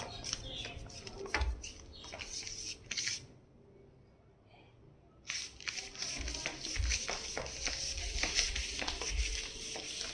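Light clicks and scuffling from a golden retriever puppy's paws and claws moving on a tiled floor close to the phone, mixed with dull knocks from the phone being handled. The clicks stop for about two seconds midway, then resume more densely.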